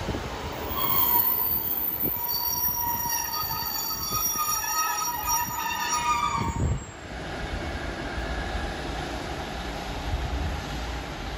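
GWR Class 150 diesel multiple unit pulling out and drawing away, its steel wheels giving a high squeal of several steady tones for about six seconds that cuts off suddenly. A low rumble from the train carries on after it.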